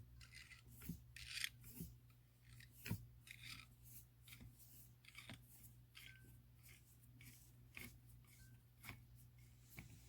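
Faint scraping and scattered light clicks of a slotted screwdriver working a port on a PCP air rifle's action, over a steady low hum.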